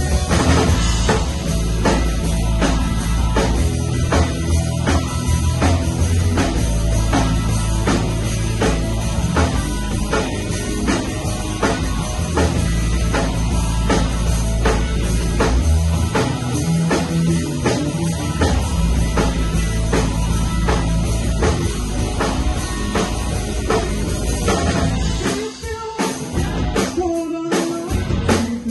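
Rock band playing live in a rehearsal room: electric guitar, bass guitar and drum kit together, loud and driving with a steady beat. The low end and drums drop away briefly about 25 seconds in, then the playing picks up again.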